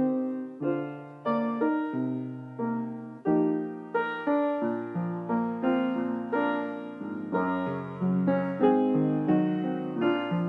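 Slow solo piano music: chords and a melody, each note struck and then fading.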